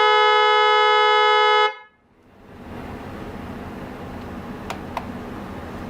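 Electric snail (spiral) car horn sounding one steady, loud tone that cuts off after nearly two seconds. Then only a low background hiss, with two faint clicks near the end.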